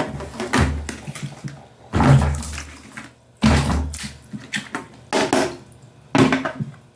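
Water splashing in separate surges as a washing machine's lint strainer is rinsed and handled, about six times, each surge starting suddenly and fading away.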